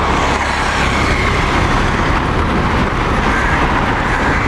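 Steady noise of passing vehicles nearby, continuous and even, with no distinct knocks or clicks.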